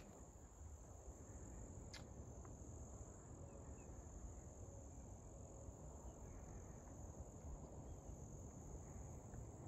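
Faint, steady high-pitched trilling of insects, a continuous drone that never breaks, with a single sharp click about two seconds in.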